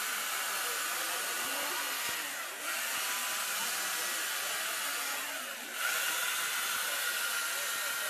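Chainsaw running at high speed while carving into a block of ice, a steady high whine with a hissing spray. It eases off briefly twice, about two and a half and five and a half seconds in, then picks back up.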